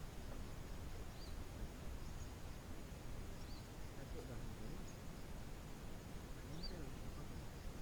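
A small bird giving three short, high chirps a couple of seconds apart over a faint, steady outdoor background hum.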